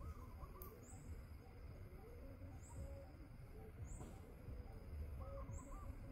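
Faint outdoor ambience of birds calling softly, with a short high chirp repeating about every second and a half and a low rumble underneath.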